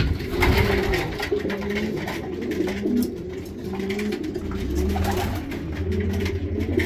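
Racing pigeons cooing in the loft, with repeated low coo phrases from several birds. A low steady hum comes in about four and a half seconds in.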